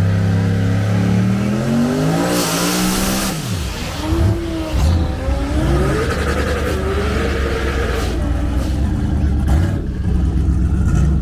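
No-prep drag car's engine revving, its note climbing over about three seconds. A burst of hiss comes as it launches, then the engine note drops sharply and wavers up and down as the car runs away down the track.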